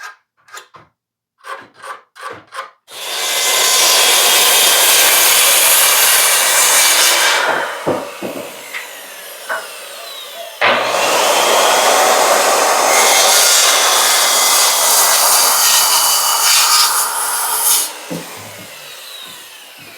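Power saw cutting through a board in two passes: the first from about three seconds in for some four seconds, the second starting sharply at about eleven seconds and running some seven seconds. Each cut ends as the motor winds down. A few light knocks come before the first cut.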